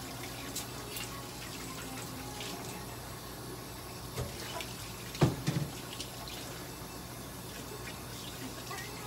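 Steady hiss with a low hum beneath it, a few faint ticks, and one short dull thump a little after five seconds in.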